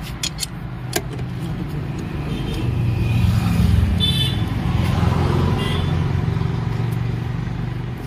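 Low, steady engine rumble of a motor vehicle, swelling from about two and a half seconds in, with a few sharp metallic clicks in the first second from a socket wrench on the scooter's wheel nuts.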